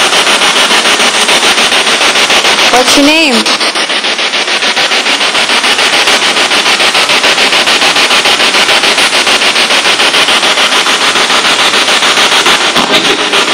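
A spirit box, a radio rapidly sweeping through stations, hissing with loud static chopped into a fast even stutter. About three seconds in, a brief wavering fragment of a voice comes through the hiss.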